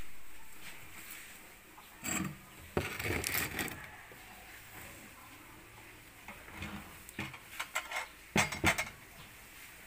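A noise that starts loud and fades away over the first couple of seconds, followed by scattered knocks and clinks of glass bowls and dishes on a table, in two clusters: one around the third second and one near the end.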